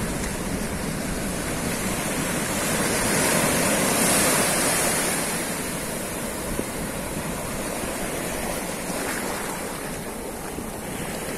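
Ocean surf washing in: a steady rush of breaking waves that swells louder about four seconds in, then eases off.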